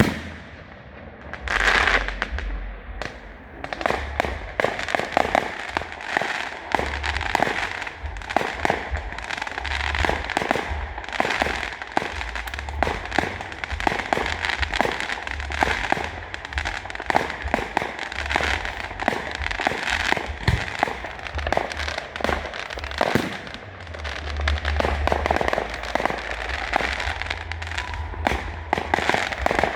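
Fireworks display: a dense, continuous barrage of bangs and crackling, with a brief loud hiss about two seconds in.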